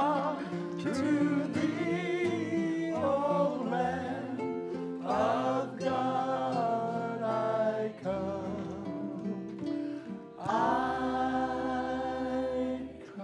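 A man sings to acoustic guitar accompaniment, his voice wavering with a wide vibrato. About ten and a half seconds in, he holds a long note.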